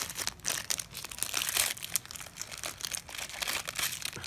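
Crinkly toy wrapping rustling and crackling in the hands as small surprise pieces are unwrapped, in quick irregular crackles.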